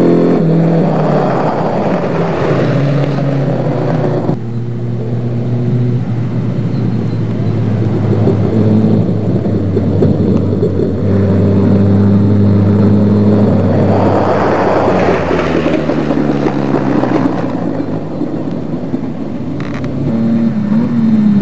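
Off-road racing buggy engines running hard along a dirt track, a steady engine drone with swells of noise as cars pass. The sound breaks off abruptly about four seconds in and swells again a little past the middle.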